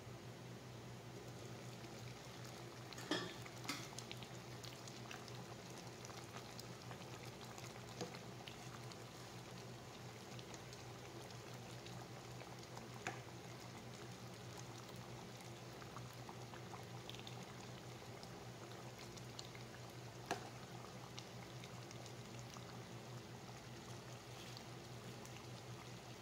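Thick peanut-sauce stew with eggplant and string beans simmering in a pot, a faint steady bubbling. A few short light clicks come through, two about three seconds in and single ones later.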